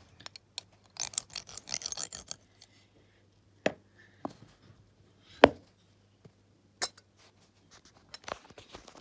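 A crumbly pink powdery mix crunching and scraping as it is pressed and worked in a small glass cup. This is followed by a few sharp taps and clinks of the glass, the loudest about halfway through, and soft scraping near the end.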